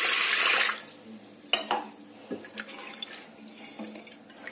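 Water poured from a glass onto lentils in a pressure cooker, splashing loudly for about the first second. After that come a few light knocks and clinks in the pot.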